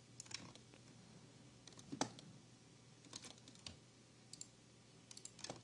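Faint, scattered clicks of a computer keyboard and mouse being worked, about a dozen light taps with a sharper one about two seconds in, over a faint steady hum.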